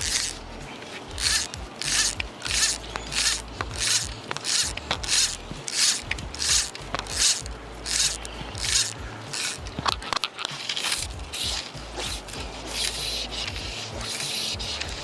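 Fly line being stripped in by hand through the fly rod's guides: short rasping rubs about twice a second, blurring into a steadier hiss near the end.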